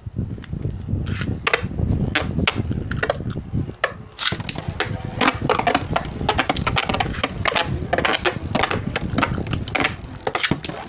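Two Beyblade spinning tops with metal wheels whirring around a plastic stadium, with a steady low rumble and rapid irregular clicking and clacking as they bump the walls and each other. The clacks come thicker from about four seconds in.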